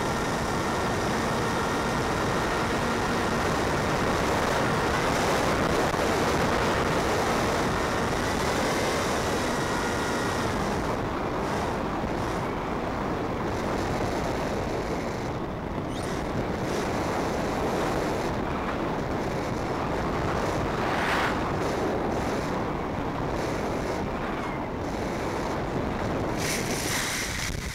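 Steady rushing airflow noise on a small electric FPV plane's onboard microphone, with a faint high whine from its brushless motor that stops about ten seconds in as the motor is cut for a glide. A brief brushing noise comes near the end as it settles into grass.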